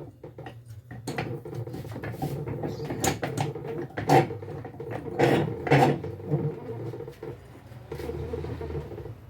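Metal clinks and knocks of tools and starter-motor parts as the starter's solenoid is unbolted, the loudest a few seconds in. A steady low hum runs underneath.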